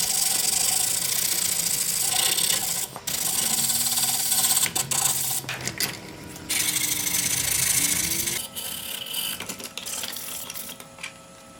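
Rough rubbing and scraping in long stretches, with short breaks about three seconds and six seconds in, turning quieter after about eight seconds.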